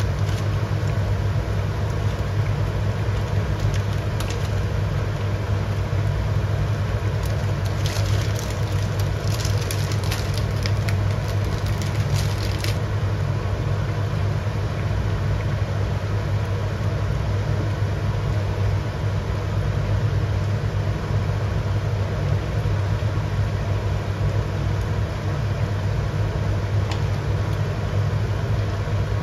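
Steady low hum and rush from a gas stove cooking a simmering tomato soup in a wok, with faint crackle. Between about eight and thirteen seconds there is a run of light clicks and scraping as noodles are stirred in with a wooden spatula.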